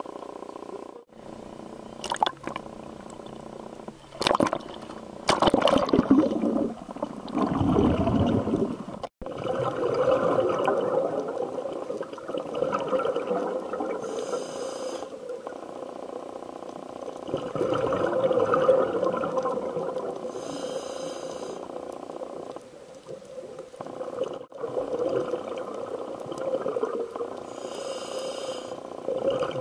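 Underwater sound heard through the camera housing: a scuba diver breathing through a regulator, the exhaled bubbles rumbling in swells and a short hiss of inhalation coming about every seven seconds. It is preceded by a few sharp knocks and a rush of water in the first several seconds.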